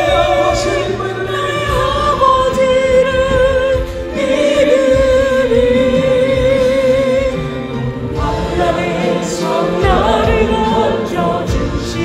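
Korean Christian worship song: sung melody with vibrato on held notes over choir and accompaniment.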